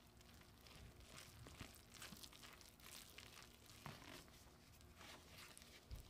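Faint, irregular scraping and crumbly, sticky stirring of a spatula working flour and water into a shaggy dough in a glass bowl, with a soft low knock near the end.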